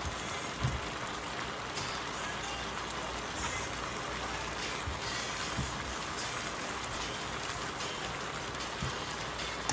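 Chicken strips in sauce sizzling steadily in an electric skillet, with a few faint ticks.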